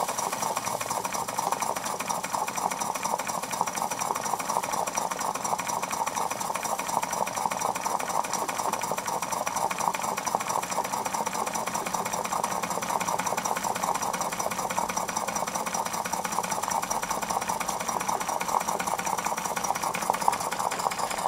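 Mamod SP8 model live-steam stationary engine running steadily on a small regulator opening: a fast, even beat of rapid steam chuffs and mechanical clatter.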